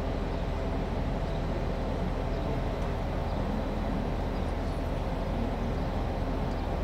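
Railway station platform ambience: a steady low machine hum under an even rushing background, with no distinct events.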